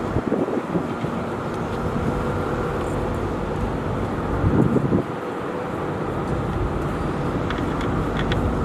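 A steady mechanical hum with wind noise. There is a louder rumble of handling about half a second in and another around four and a half seconds in.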